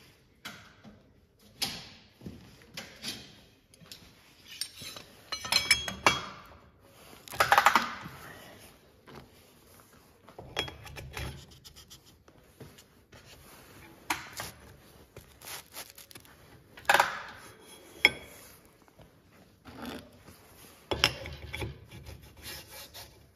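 Flanged linear bearings being set into the bored holes of a machined steel plate, with a G-clamp put on: irregular metallic clinks, knocks, scrapes and rubbing. The loudest knocks come about six to eight seconds in and at about seventeen seconds.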